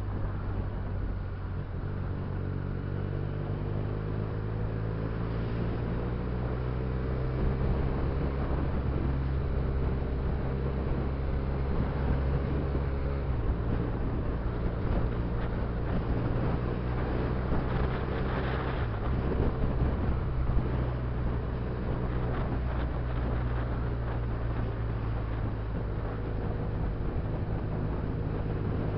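Benelli TNT300 motorcycle's 300 cc parallel-twin engine running while riding in city traffic, with wind and road noise. The engine note rises gently a few seconds in and changes pitch about halfway through.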